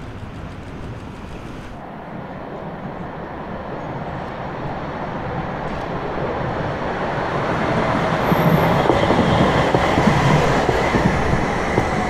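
City tram running on its rails, the rumble of wheels on track growing steadily louder as it approaches and passes, with a faint whine that slowly falls in pitch in the later seconds.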